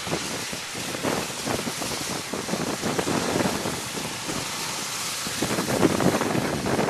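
Blizzard wind buffeting the microphone in irregular gusts, a steady rushing noise.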